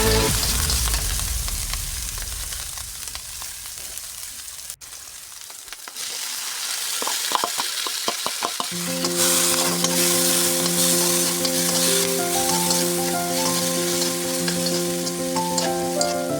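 Food sizzling and frying in a hot pan while it is stirred, a steady crackling hiss, with a few short metallic clinks about halfway through. Background music fades out at the start and comes back in a little past halfway.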